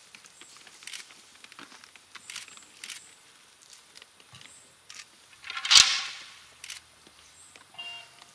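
Scattered light crunches of a horse's hooves and people's feet on a wood-chip ground, with one loud rushing burst a little past the middle.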